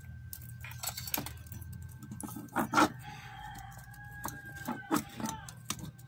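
Metal clicks and knocks as a washing machine motor's shaft and its tight-fitting parts are handled and pressed together by hand, the loudest a pair of knocks about two and a half seconds in. A rooster crows in the background from about three and a half to five seconds in.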